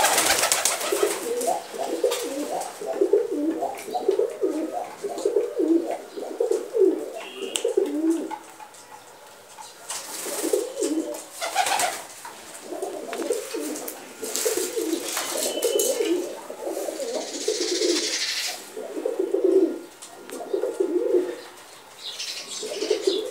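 Domestic pigeons cooing over and over in low, warbling phrases with short pauses, with a few brief rustling noises among them.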